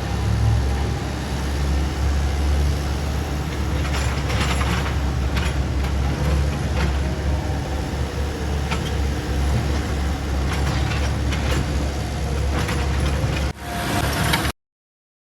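Excavator's diesel engine running steadily with a low rumble, with scattered metallic clanks from the working machine. The sound cuts off suddenly near the end.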